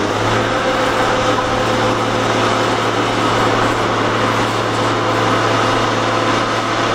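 An engine idling with a steady low drone and a faint whine over it, most likely one of the wreck-clearing cranes waiting to lift.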